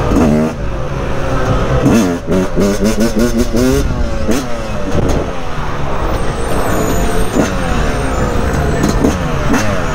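Yamaha dirt bike engine being ridden hard, revving up and dropping back in pitch many times in quick succession with each burst of throttle.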